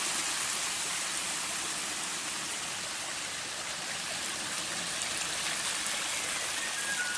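Running water rushing steadily, as from a stream or cascade. Faint music notes come in near the end.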